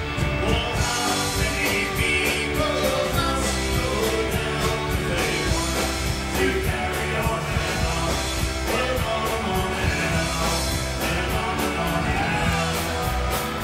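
Live folk-rock band playing a song with a singer, electric guitars, fiddle and a drum kit keeping a steady beat, all through the stage PA.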